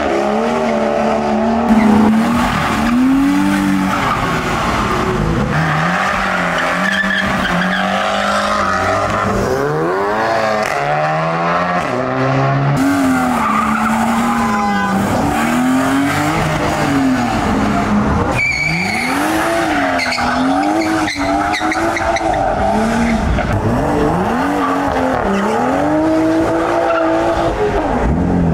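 Modified cars pulling away hard one after another, engines revving up and falling back again and again, with tyre squeal as they slide out sideways.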